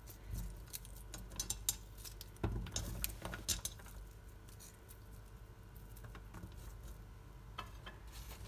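Raw onion rings dropped by hand into an empty pot: a scatter of soft, light taps and pattering, mostly in the first few seconds, with a few more near the end.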